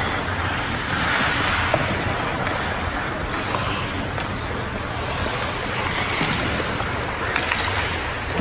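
Steady rushing ambience of an ice rink during a youth hockey game, with a few faint clicks.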